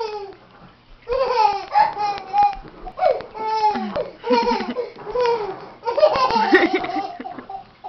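A child laughing in high-pitched bursts, with a short lull about a second in and the loudest laughter near the end.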